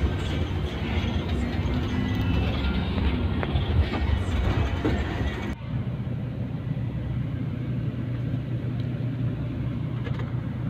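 Bus engine running with a low, steady hum, with clatter and faint background sounds in the first half. The sound changes abruptly about halfway through to a quieter, smoother hum.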